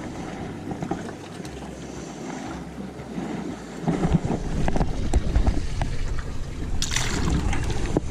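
Wind buffeting the microphone on a small fishing boat, a steady low rumble with scattered short knocks from handling on deck.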